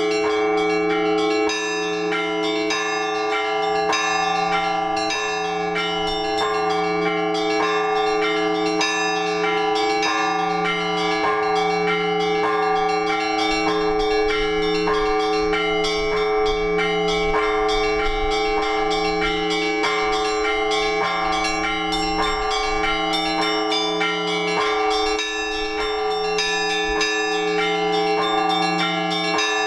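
Orthodox church bells rung continuously by a bell-ringer. A low bell sounds about once a second beneath rapid strikes of smaller bells, their tones overlapping and ringing on.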